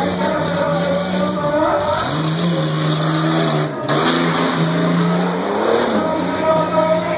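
A modified SUV's engine running hard at high revs down the dirt course. Its pitch climbs, drops and climbs again about two and four seconds in, as it shifts up through the gears.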